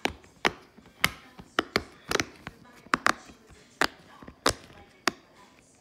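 Purple silicone push-pop fidget toy ("pop it") being pressed bubble by bubble with a finger: about a dozen sharp pops at an uneven pace.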